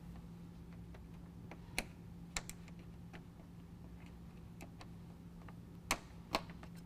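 Scattered sharp plastic clicks as a trim panel tool pries two-piece plastic push-pin retainers out of a plastic radiator cover: the clearest about two seconds in and two close together near the end, over a steady low hum.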